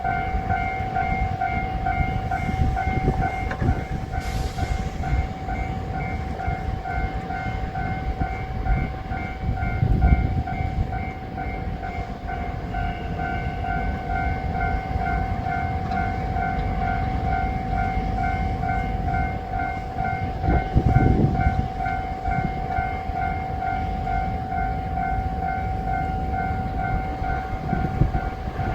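Japanese level crossing alarm ringing, a repeating electronic ding about twice a second that goes on steadily, over a low rumble.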